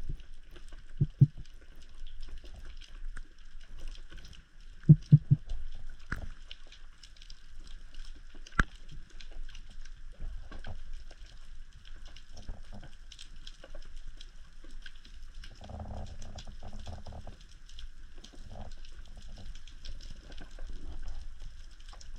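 Underwater sound recorded on a spearfisher's camera: water sloshing and gurgling against the housing, with a few sharp knocks, one about a second in, two close together near five seconds and one near eight and a half seconds.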